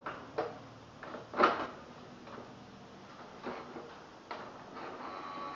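Canon PIXMA MG2550S inkjet printer starting a copy job: a series of mechanical clicks and clunks, the loudest about a second and a half in. Near the end a motor starts a steady whine.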